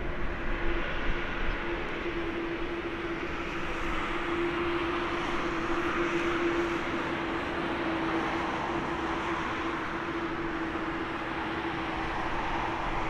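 Boeing 787-9's Rolls-Royce Trent 1000 turbofans running at low power as the airliner rolls slowly along the runway after landing: a steady rush of jet noise with a constant low hum running through it, swelling slightly midway.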